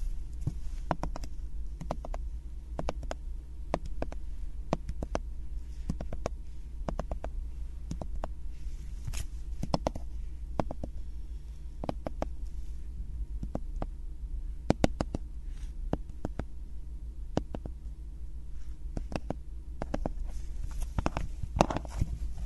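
Fingers tapping on a shrink-wrapped 3D wooden puzzle kit: irregular, crisp taps, several a second, on the plastic-wrapped card and wooden sheets.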